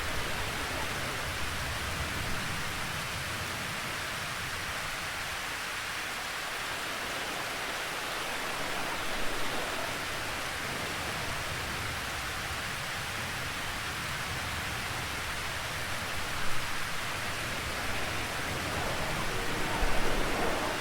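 Steady rain falling, an even hiss of drops, with a few brief louder patches near the middle and toward the end.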